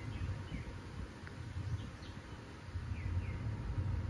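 Low, distant rumble of a Falcon 9 rocket's engines, rising and falling and growing somewhat louder near the end. Over it a bird chirps repeatedly in short falling notes.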